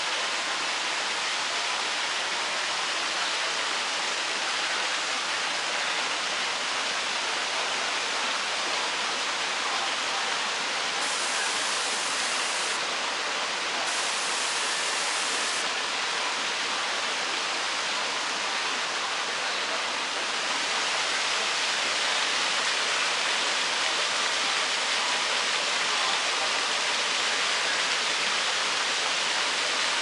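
Steady rushing noise, even and unbroken, with no parrot calls standing out.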